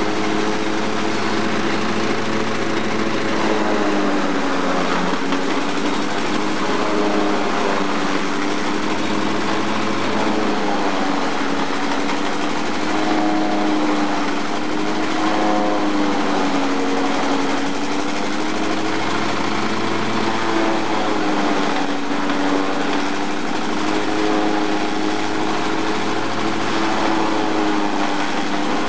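A Brahman diesel engine driving a JF-40 forage chopper through belts and pulleys, with the cutterhead and blower chopping stalks and throwing the cut forage out of the spout. The running note dips in pitch and recovers every few seconds as stalks are fed in and load the machine, over a steady rushing noise.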